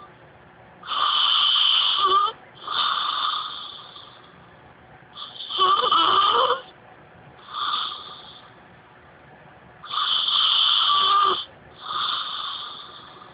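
A woman snoring loudly and rhythmically: three rounds of a long snore followed by a shorter one, repeating about every four and a half seconds with quiet pauses between.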